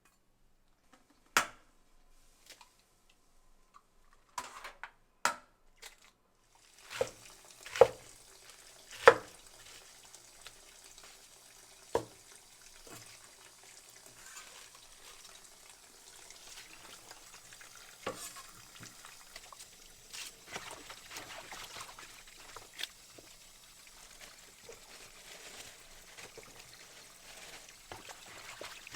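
Food frying in a pan: a few sharp knocks of utensils against the pan, the loudest about eight and nine seconds in, then a steady sizzle with scattered clicks and scrapes of stirring.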